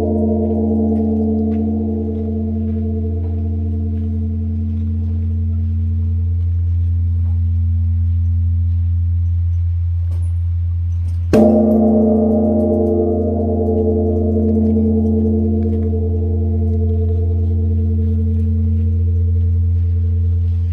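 Large bronze Korean Buddhist temple bell (beomjong) ringing: the long hum of one stroke dies away, then about eleven seconds in the bell is struck again with its wooden log striker and rings on. Its overtones waver in slow pulses over a steady deep hum.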